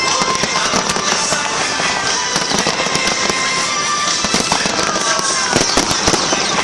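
Fireworks going off in a dense, continuous barrage of crackling bangs, with a short falling whistle about five seconds in.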